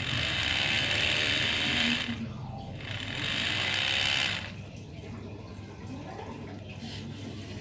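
Handmade miniature Yamaha XMAX scooter model 'revved' by twisting its throttle grip: two bursts of whirring, about two seconds and then about a second and a half, with the pitch rising and falling in each.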